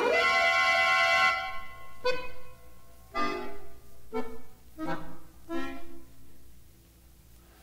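Classical accordion music ending: a loud held chord breaks off, then about five detached chords roughly a second apart, each softer, before the music stops.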